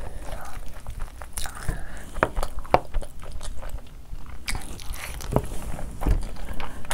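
Close-miked chewing and wet mouth sounds from eating handfuls of curry-soaked rice, with irregular sharp lip smacks and clicks.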